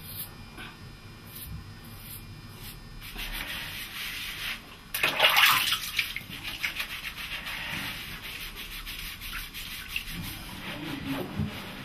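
Hands scrubbing and lathering a man's wet hair, a rapid scratchy rubbing that starts about three seconds in and is loudest around five seconds in.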